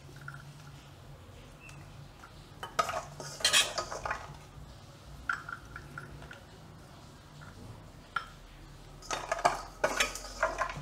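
Metal spoon stirring and scooping masala cashews in a glass bowl: clinks of the spoon against the glass and the nuts clattering. The clinks come in two bursts, about three seconds in and near the end, with a few single clinks between.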